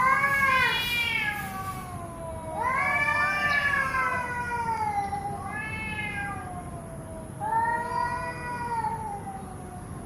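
Domestic cat meowing: four long, drawn-out meows, each gliding in pitch and tailing off lower.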